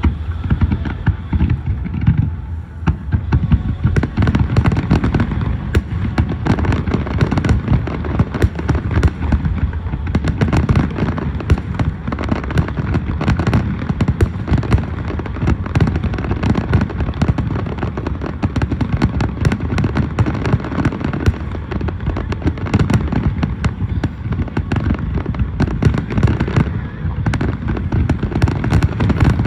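Fireworks display: a dense, unbroken barrage of bangs and crackles over a low rumble.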